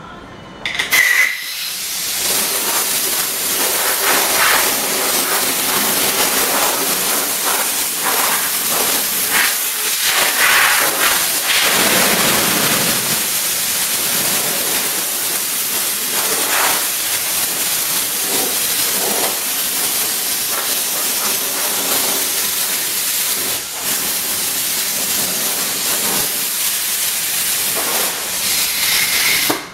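Compressed air hissing steadily from a handheld air gun for nearly half a minute. It starts and cuts off abruptly, with a brief whistle as the trigger opens and closes.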